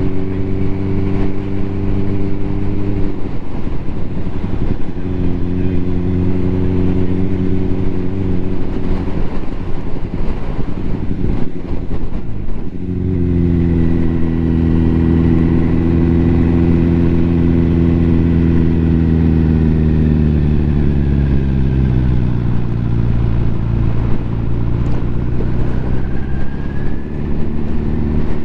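Four-cylinder motorcycle engine running on the road, its note broken briefly about three seconds in and rough and noisy for a few seconds in the middle, then falling slowly in pitch for several seconds before rising again near the end.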